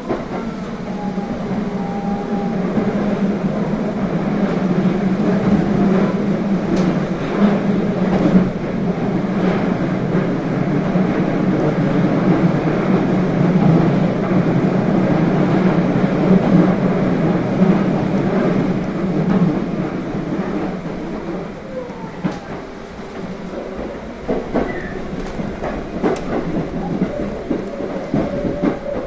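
Electric train on the JR Iida Line running, heard from inside the carriage: a steady rumble with a few sharp clicks. It eases off and grows quieter about twenty seconds in.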